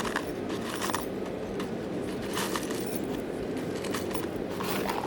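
Small steel scalpel blades clinking and jingling against each other and a steel canister as they are filled into it, in several short bursts of clicks over a steady low hum.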